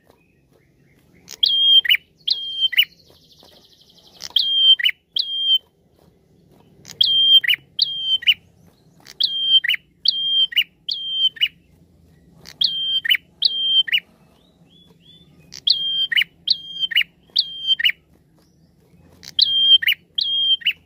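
Caged prenjak, a grey, rufous-capped tailorbird, calling in loud quick groups of two to four sharp notes, each held high then dropping steeply, the groups repeated about every two seconds, with a short fast trill about three seconds in. This is a female prenjak's call to males, used as a lure call.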